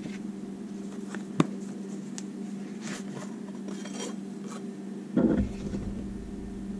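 Handling of a leather knife sheath and a steel bowie blade: small clicks and rustles, a sharp click about a second and a half in, and a louder knock and rustle about five seconds in, over a steady low hum.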